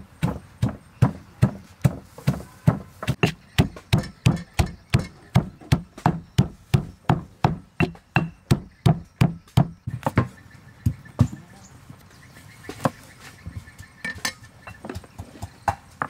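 Stone pestle pounding chilies and garlic in a stone mortar: a steady run of dull thuds, about three a second. The pounding stops about ten seconds in, leaving only a few light clicks and knocks.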